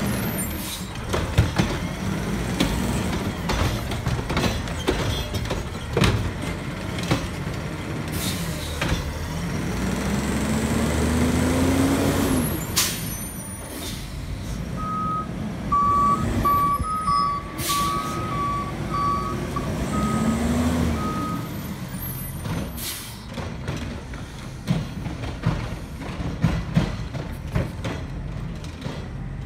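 CNG automated side-loader garbage truck working: the engine runs with two rising whines as it revs to drive the hydraulics, several sharp clanks and hisses, and about the middle a run of short beeps alternating between two pitches.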